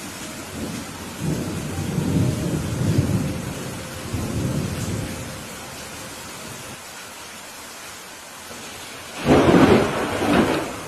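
Thunderstorm: steady rain hiss with a low rolling rumble of thunder in the first half, then a louder, sharper thunderclap about nine seconds in.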